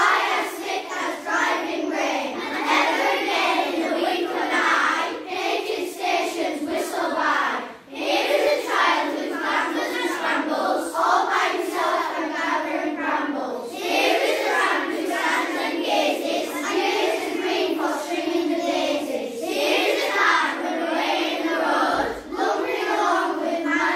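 A large group of children reciting a poem aloud in unison, many voices overlapping, with a couple of short pauses between lines.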